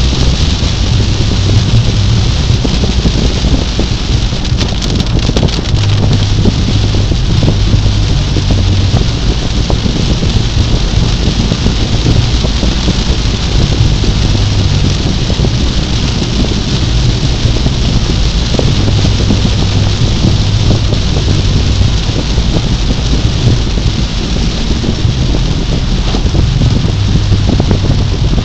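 Heavy rain falling on a car's windshield and roof, heard from inside the cabin while driving, as a dense, steady crackle. A low engine and road hum runs underneath.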